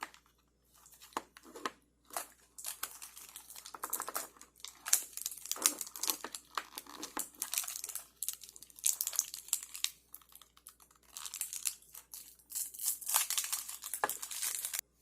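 Toy blind-bag packets being torn open and crinkled by hand: a run of short tearing and rustling bursts with brief pauses between them.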